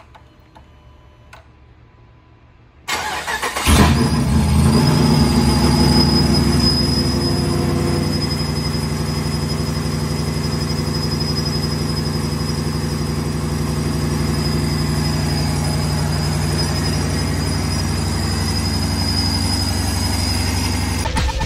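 Cammed 5.7 Hemi V8 with a TorqStorm centrifugal supercharger cranking on the starter about three seconds in and catching within a second. It runs at a high idle that drops after a few seconds into a steady idle, with a steady high whine over it. This is the engine's first start on the new tune after the supercharger, 577cc injectors and 3-bar MAP sensor were fitted.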